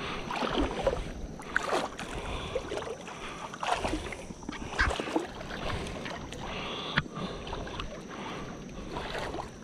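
Legs wading through shallow creek water, sloshing and splashing with each stride, about one step a second.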